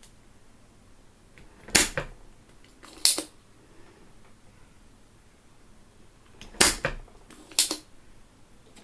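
A few sharp knocks and clicks, in two clusters: a pair about two seconds in with another a second later, then a close pair and one more around seven seconds.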